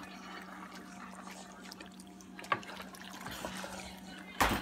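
Wooden spatula stirring thick, creamy pasta in a skillet, with wet squelching of the sauce over a steady low hum. There is a sharp click about two and a half seconds in, and a louder short knock near the end.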